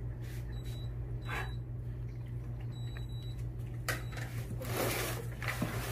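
Steady low hum of room tone, with three faint short high beeps in the first half, a click about four seconds in, and soft rustling near the end.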